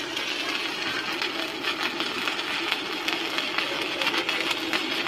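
Stick-welding arc from a 6013 electrode burning steadily: a continuous crackling sizzle with fine rapid pops.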